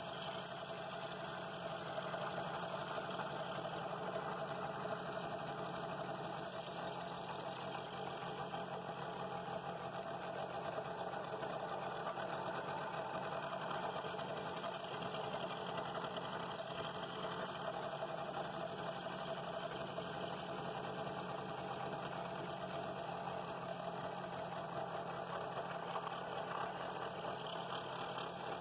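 Scroll saw running steadily, its reciprocating blade cutting slowly through thick wood to saw out a bowl ring.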